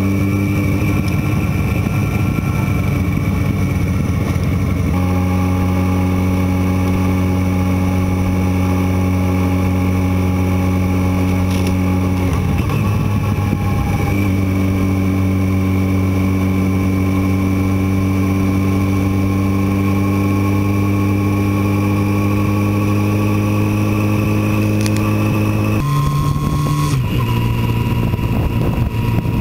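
Motorcycle engine running at a steady cruising speed, heard from the rider's seat, with an even, unchanging engine note. The note breaks briefly about halfway through and shifts in pitch near the end.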